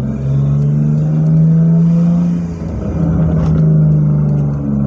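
BMW E46 engine through a full stainless steel exhaust with aftermarket headers, heard from inside the cabin as the car pulls under throttle. The pitch climbs slowly, drops briefly about two and a half seconds in, and climbs again.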